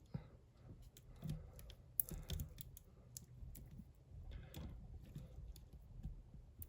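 Faint, irregular small clicks and light scraping of a diamond pick and tension wrench working the pins inside a bike lock's cylinder, with a slightly louder scrape about two seconds in.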